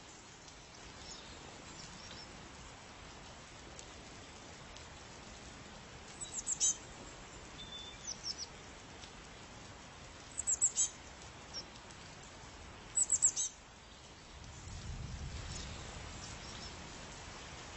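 A songbird calling repeatedly: short phrases of four or five quick, high notes every two to three seconds, over a steady background hiss. A low rumble rises briefly about fifteen seconds in.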